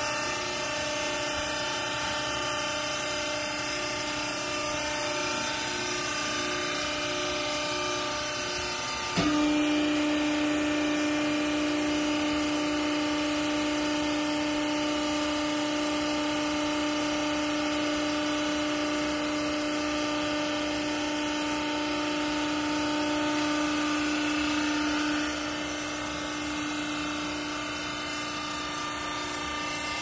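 Hydraulic power pack of a vertical clothes baler running with a steady hum. About nine seconds in there is a click and a stronger, louder pump note sets in, the sound of the hydraulics working under load, which drops back about 25 seconds in.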